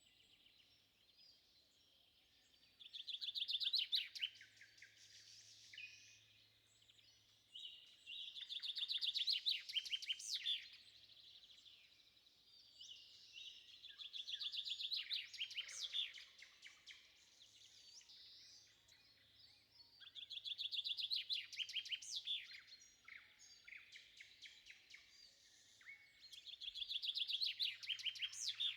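A songbird singing at dawn, repeating one rapid trilled phrase about every six seconds, five times. Each phrase rises into a high sweep, with fainter bird calls in between.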